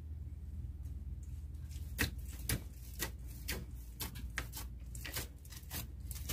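Wheat-flour dough (atta) being kneaded by hand in a steel tray: irregular soft knocks and slaps as the knuckles press the dough against the metal, about two or three a second from about two seconds in, over a steady low hum.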